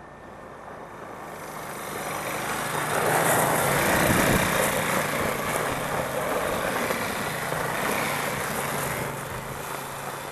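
Small engine of a youth ATV running as the quad rides up and past, growing louder to a peak about four seconds in, holding, then fading away near the end.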